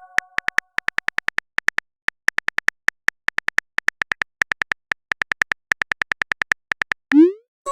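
Phone on-screen keyboard typing clicks: quick, even taps at about six or seven a second, broken by a couple of short pauses. Near the end comes a short rising swoosh, the message-sent sound.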